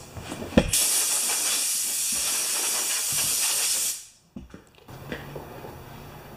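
Compressed-air blow gun on an air hose, blowing a steady hiss for about three seconds, then cutting off sharply.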